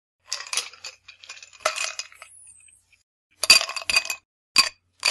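Chunks of crushed ice handled with metal tongs and dropped into a glass tumbler of ice cubes, clinking and rattling against the glass in several bursts. The loudest burst comes a bit over three seconds in, and two short clinks follow.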